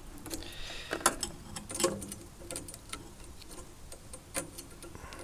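Irregular light clicks and taps of handling: meter test probes and leads being moved onto the next output transistor.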